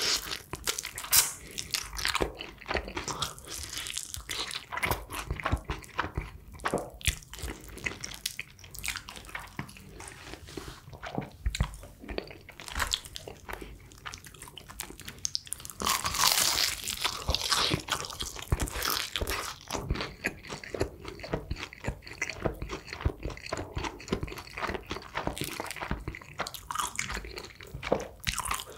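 Close-miked crunching and chewing of crispy honey-glazed Kyochon Honey Combo fried chicken: repeated bites through the crust with a crackle of crisp bits, louder and denser a little past the middle.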